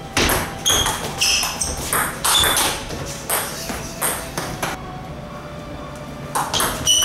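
Table tennis rally: the ball clicking sharply off the paddles and the table in quick alternation, a few hits a second. The hits stop for about a second and a half after the point is won, then start again with the next serve.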